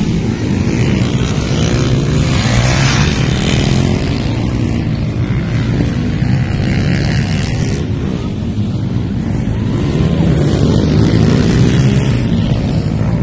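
Dirt bike engines running on a motocross track: a loud continuous engine drone whose pitch rises and falls as the bikes rev, most noticeably a couple of seconds in.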